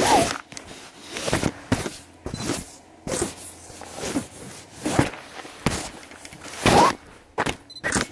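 Footsteps crunching along a gravel forest track, roughly one step a second, mixed with rubbing and knocking from the handheld camera swinging at the walker's side.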